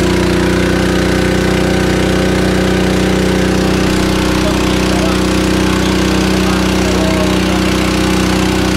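Small boat engine running steadily and loudly at one constant speed, the pitch not rising or falling.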